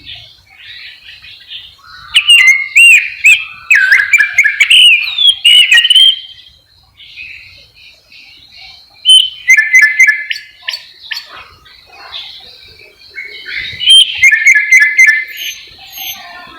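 Chinese blackbird singing: three loud phrases of varied whistled notes, starting about two, nine and fourteen seconds in, with softer twittering between them.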